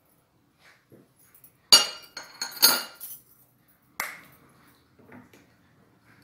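Stainless steel measuring spoon clinking against a glass blender jar: a quick cluster of sharp clinks a little under two seconds in, then one more clink about four seconds in.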